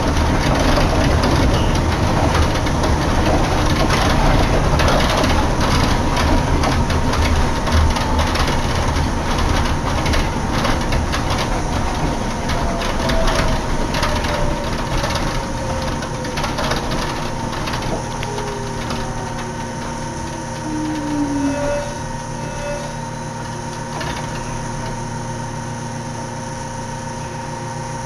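Inside a Yukarigaoka Line rubber-tyred people-mover car running along with a steady noise and frequent knocks and rattles, then slowing: a whine falls in pitch over several seconds as it brakes into the station. Once it has stopped, a steady hum is left.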